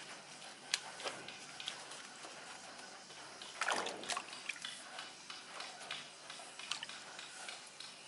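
Soaked coconut-husk chips being handled: a hand dips into a bucket of water with a splash about three and a half seconds in, and wet chips drop and rustle with light clicks onto a plastic mesh sieve.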